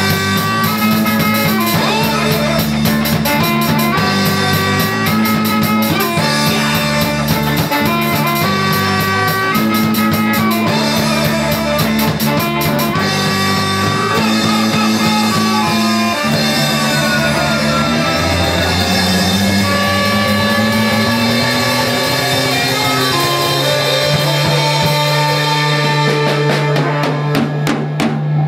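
A ska band playing: drum kit, electric guitar, electric bass and saxophone. Busy drum and cymbal hits drive the first half; in the second half the hits thin out under held notes and a slowly rising bass line.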